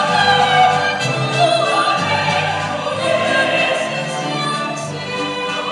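A woman singing in operatic style, holding long wavering notes over instrumental accompaniment.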